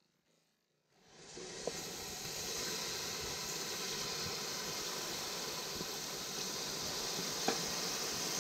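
A steady hissing noise fades in about a second in and holds evenly, with a few faint clicks over it.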